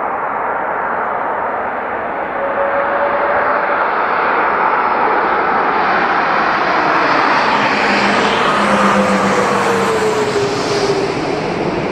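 Airbus A330 jet airliner passing on landing, its engine noise growing louder to a peak about eight to ten seconds in, with whining tones that slide down in pitch as it goes by.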